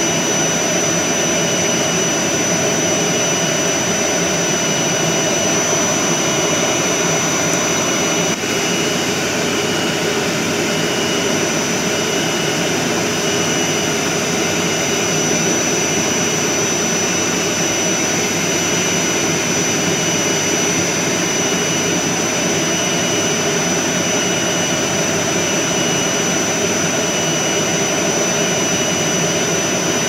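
Vacuum cleaner running steadily, a loud even rushing drone with a high whine over it, dipping briefly about eight seconds in.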